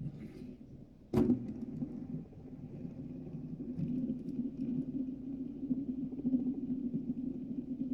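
A sharp knock about a second in, then a steady low whirring that builds and holds, typical of a fidget spinner spinning close to the microphone.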